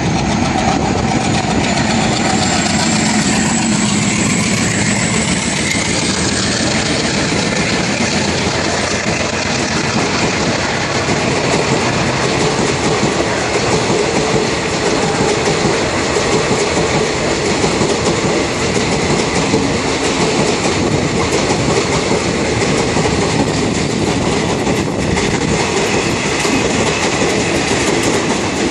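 A WDM3A diesel locomotive's 16-cylinder ALCO engine runs hard as the train accelerates past, with a high whine rising over the first few seconds. Then a long rake of passenger coaches rolls by, wheels clattering rhythmically over the rail joints.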